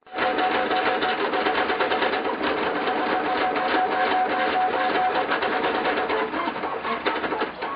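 3D printer's stepper motors driving lead-screw axes while the hot end lays down ABS plastic: a steady whirring hum with rapid fine ticking and shifting motor tones, one of which drops out about six seconds in.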